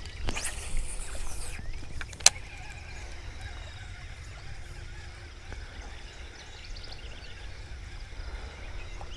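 A cast with a baitcasting rod: a rising hiss of line paying off the spool in the first second, a sharp click about two seconds in, then the reel being cranked to work the frog back. Steady wind rumble on the microphone runs underneath.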